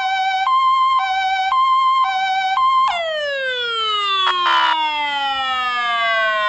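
Emergency-vehicle siren sounding the two-tone hi-low signal, switching between a higher and a lower pitch about twice a second. About three seconds in it jumps up and then falls in one long slow glide, like a siren winding down, with a brief burst of noise partway through the fall.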